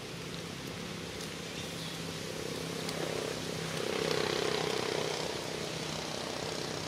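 A steady engine drone, growing louder about three seconds in and easing again near the end.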